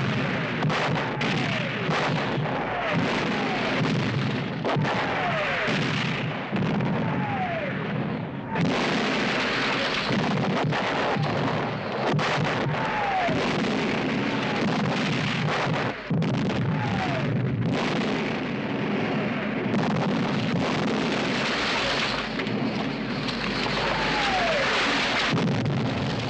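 Air raid bombing: a dense, continuous din of bomb blasts and falling debris. Again and again through it comes the falling whistle of a dropping bomb.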